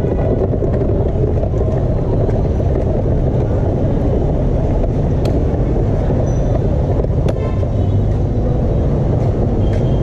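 Wheelchair wheels rolling over paving stones: a steady low rumble with a couple of sharp clicks from bumps along the way.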